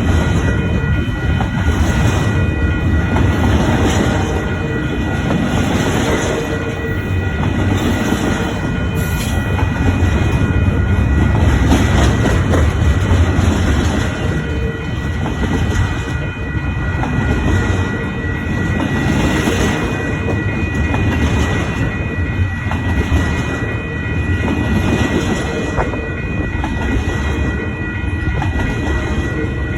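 Cars of a long intermodal freight train rolling past, with the wheels clacking over rail joints in a steady repeating rhythm under a continuous rumble, and a thin steady high ringing above.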